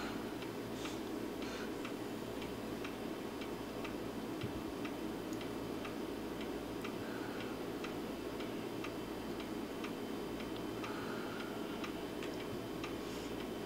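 Quick, even ticking, like a clock, over a steady low hum of room noise.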